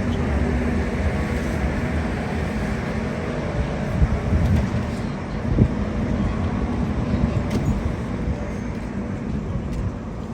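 Steady low rumble of a running vehicle engine, with two short thumps around the middle.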